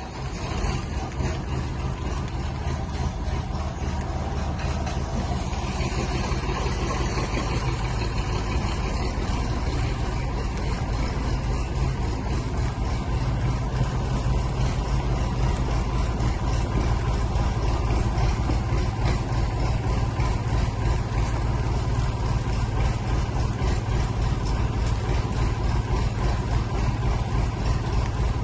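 A Jeep's engine running steadily with a low rumble, growing a little louder over the first several seconds.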